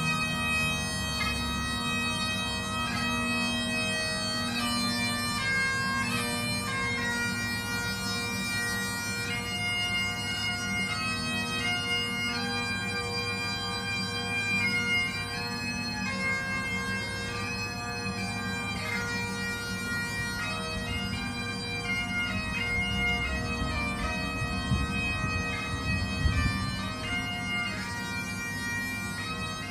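Bagpipes playing a melody over their steady, unbroken drones.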